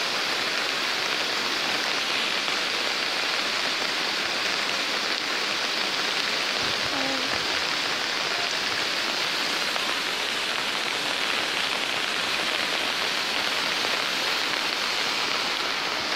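Steady, even wash of water noise from heavy rain and swollen, churning muddy floodwater rushing past.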